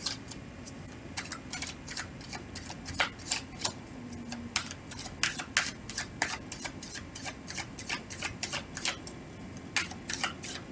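A deck of tarot cards being shuffled by hand: an irregular run of quick, light card clicks and slaps as packets of cards are pulled and dropped, some in quick clusters.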